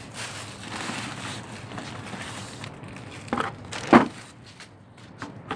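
Plastic crinkling as it is handled in gloved hands, followed by two sharp knocks about half a second apart and a few light clicks.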